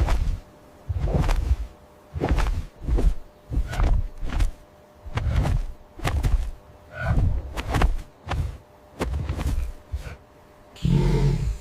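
A steady series of heavy, deep thuds, roughly one a second, each lasting about half a second.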